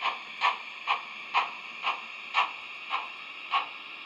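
HO-scale model passenger cars' wheels clicking over the track joints as they roll past, a regular clack about twice a second that spreads out toward the end as the train slows.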